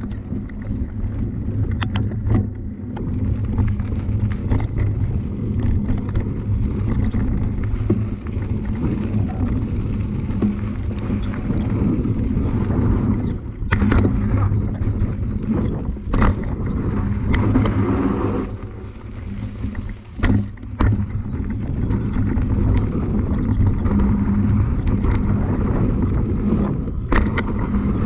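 Mountain bike riding over a rough, loose trail: a steady rumble of tyres and wind on the microphone, broken by frequent sharp knocks and rattles as the bike hits bumps.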